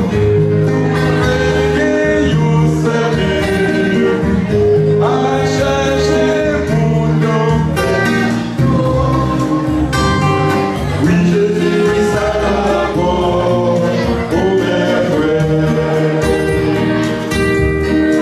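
Haitian gospel song: singing over guitar accompaniment.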